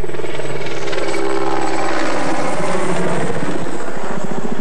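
Large helicopter flying overhead, its rotor chopping in a fast, steady beat.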